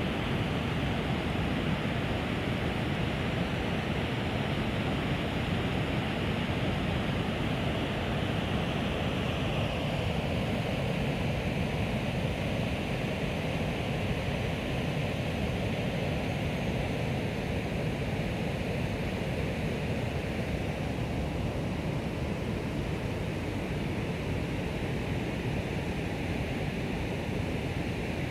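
Steady rush of river water pouring over a low weir, an even noise without breaks that gets a little less bright from about ten seconds in.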